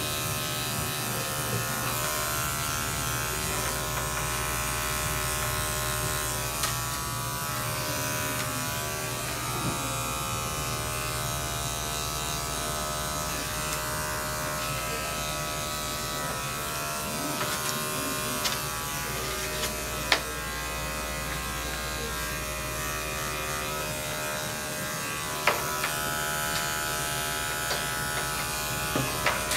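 Corded electric dog grooming clippers running steadily, buzzing as they are worked through a dog's short coat on the rear and legs, with a few sharp clicks.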